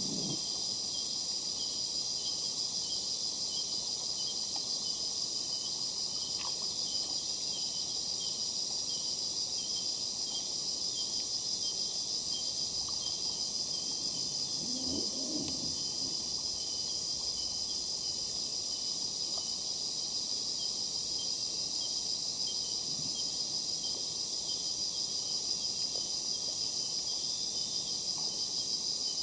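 Dense, steady insect chorus, a high-pitched shrill buzz with a faint regular pulsing trill beneath it. A brief, lower call stands out for a moment about halfway through.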